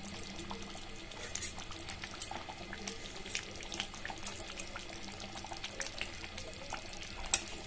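Thick chicken curry simmering in a metal pan: quiet bubbling with scattered small pops, while a metal spatula stirs through the gravy.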